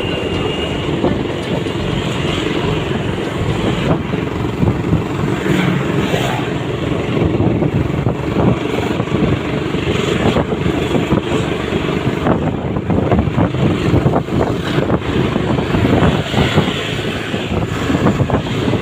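Wind buffeting the microphone over the steady running noise of a vehicle travelling along a road.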